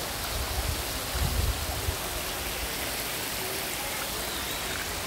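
Waterfall: water pouring down a rock cliff in a steady, even rush, with a few low thumps on the microphone in the first two seconds.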